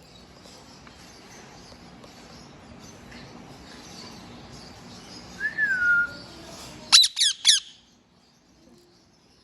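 Indian ringneck parakeet giving a short whistle that slides down in pitch, then about a second later three loud, sharp squawks in quick succession.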